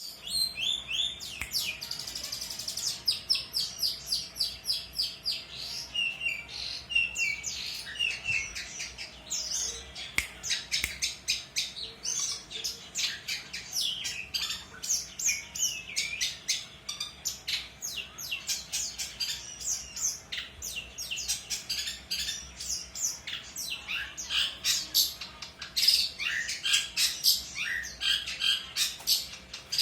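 Long-tailed shrike (pentet) singing constantly: a rapid, unbroken stream of varied chirps, short trills and harsher squawky notes.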